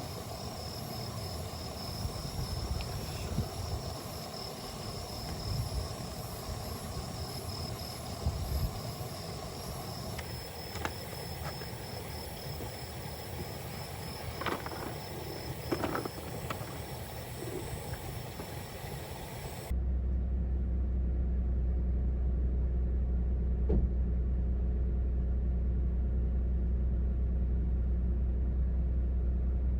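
Outdoor night ambience: a steady, pulsing insect trill over a general rush of noise, with a few light clicks. About two-thirds of the way in it cuts abruptly to a louder, steady low rumble with a hum.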